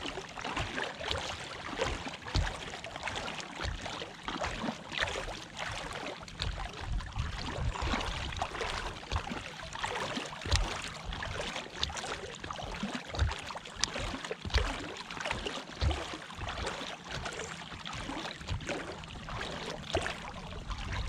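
River water lapping and splashing against a small boat, with irregular low bumps and knocks.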